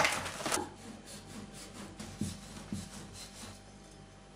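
Plastic wrapping of a fresh kadayıf pack crinkling briefly as it is pulled open, then faint rustling of the dry pastry strands being handled on a wooden cutting board, with two soft knocks a little over two seconds in.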